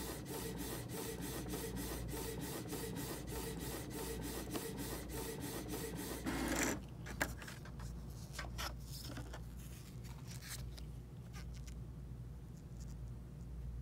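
Canon inkjet printer printing a photo: a steady mechanical run of rapid, regular strokes, about five a second, that ends after a brief louder whir about six and a half seconds in. After that it is quieter, with a few faint clicks.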